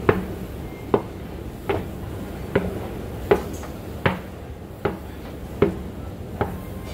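Regular sharp knocks on a metal escalator, about one every three-quarters of a second, over a low steady hum.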